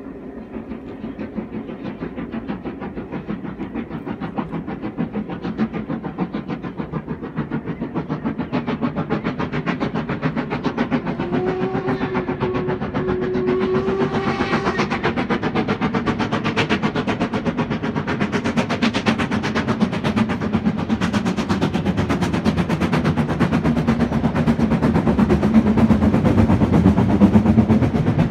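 Steam locomotive hauling its train, the exhaust beating in a rapid, even chuff that grows steadily louder as it comes nearer. A whistle sounds for about three seconds around the middle.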